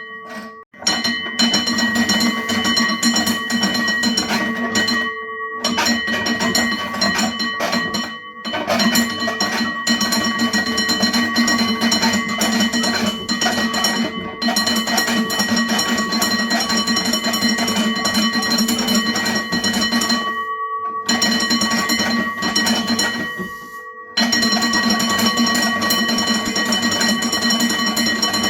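Vintage manual fire alarm bell rung by hand with a rotary Bakelite knob: a loud, continuous, rapid ringing of the gong that breaks off briefly four times.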